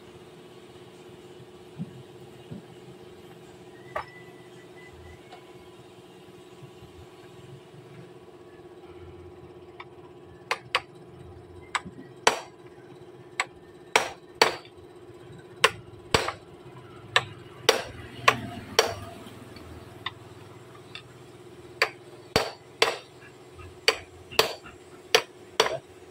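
Hammer blows, sharp and repeated: a few single knocks at first, then from about ten seconds in a steady run of strikes at roughly one to two a second, over a steady hum.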